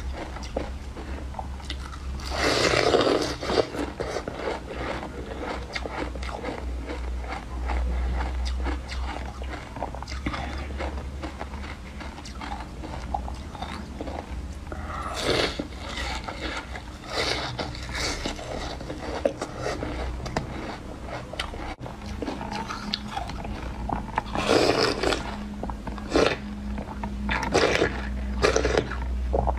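Close-up crunching bites into a block of frozen milk ice, followed by chewing of the icy pieces. The loud crunches come in three bouts, with quieter crackling and chewing between them, over a steady low hum.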